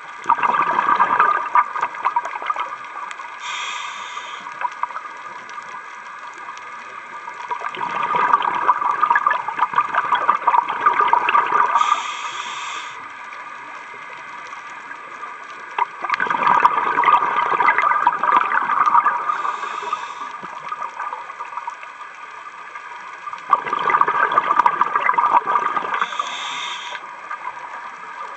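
Scuba diver breathing through a regulator underwater. Exhaled bubbles come out in four long bursts about eight seconds apart, each breath with a short high hiss.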